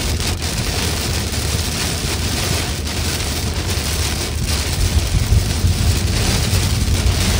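Heavy rain beating on a car's windshield and roof, heard from inside the moving car as a steady hiss, over a low, continuous rumble of the car on the wet road.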